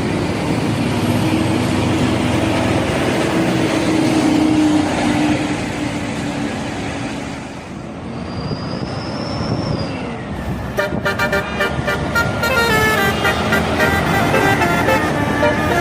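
Road traffic noise from a passing vehicle, then, about eleven seconds in, a bus telolet horn starts playing a tune of several notes that step up and down in pitch.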